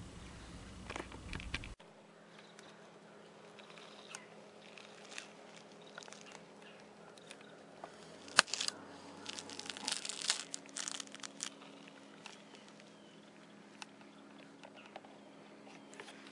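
Faint crinkling and rustling, like fabric or gear being handled, with scattered small clicks over a low steady hum. The crinkling is densest near the middle. A louder low hum cuts off suddenly in the first two seconds.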